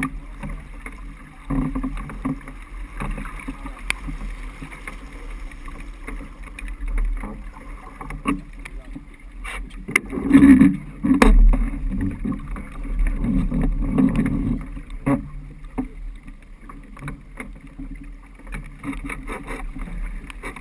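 Niagara 26 sailboat underway in chop: wind buffeting the microphone over water rushing and splashing along the hull, with scattered knocks from the deck and rigging. Louder surges of wind and water come about halfway through.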